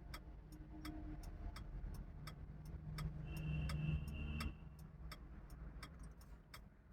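Car turn-signal relay ticking about three times a second inside a Maruti Suzuki Alto K10's cabin, over the low hum of its engine. A steady droning tone swells for about a second and a half near the middle, the loudest part.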